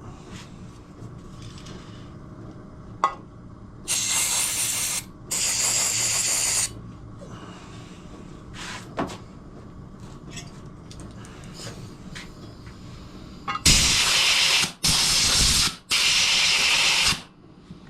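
Compressed air blasting out threaded holes in motorcycle engine cases: two hissing blasts about four seconds in, then three more near the end, each about a second long. Light knocks of parts being handled come in between.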